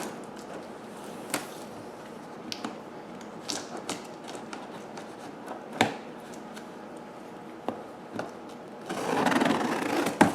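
A cardboard vacuum-cleaner box being opened and handled: scattered sharp clicks and knocks, then a longer scraping rustle about nine seconds in.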